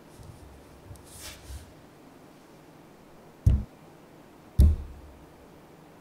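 Magnetic balls handled lightly, then two sharp, low thuds about a second apart as clusters of magnetic balls snap onto a figure being built from them.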